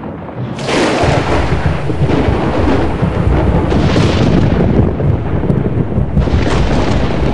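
A loud thunderclap during a heavy rainstorm: a sudden crack about half a second in, then a long low rumble, with further sharp crackles near the middle and near the end.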